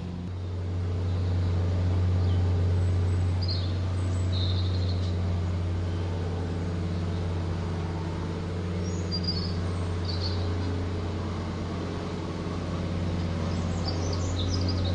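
Small birds chirping now and then over a loud, steady low hum.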